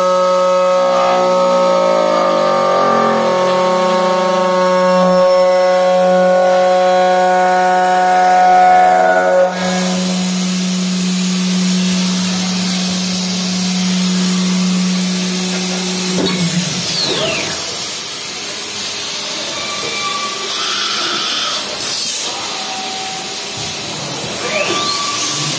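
CNC aluminium profile machining centre milling an aluminium profile: the spindle runs with a steady whine while the cutter works. About a third of the way in, a strong steady hiss joins it. About two-thirds through, the spindle winds down in a falling whine, and near the end it spins up again in a rising whine.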